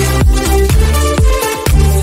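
Upbeat electronic dance background music with a steady thumping beat and a short break just before the end.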